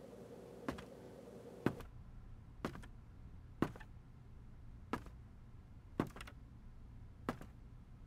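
Slow footsteps on a hard floor: seven sharp, faint steps about a second apart, some landing as a quick heel-and-toe double.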